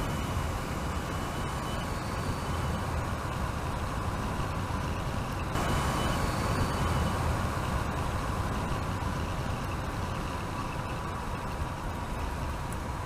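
Steady road noise of the Mercedes-Benz GenH2 hydrogen fuel-cell electric truck driving at speed: tyres rumbling on the road and wind rushing, with no combustion engine note. It grows a little louder about five and a half seconds in.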